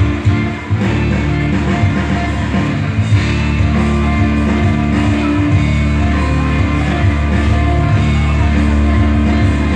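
Background music: a rock song with guitar and singing.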